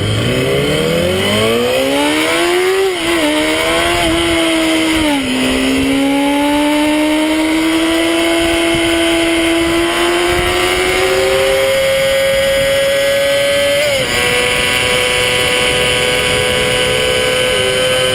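Honda CBR250RR's 250 cc inline-four engine revving hard under acceleration. The pitch climbs steeply, drops at gear changes about three and five seconds in, then holds high and slowly rises as the bike runs near the top of its rev range.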